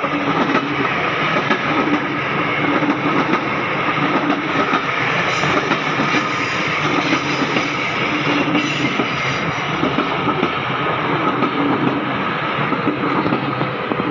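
A Commuter Line electric train passing close by, with a loud, steady rush of wheels running on the rails. The sound builds just as it starts and holds for about fourteen seconds.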